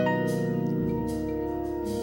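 Church band's instrumental introduction to a gospel solo: sustained keyboard chords over a low bass line, with new notes entering every half second or so and light cymbal strokes.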